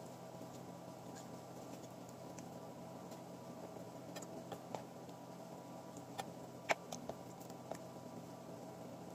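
Kitchen knife slicing raw pork on a wooden cutting board: a few faint scattered taps and ticks of the blade against the board, mostly in the second half, the sharpest about three-quarters of the way in, over a steady low room hum.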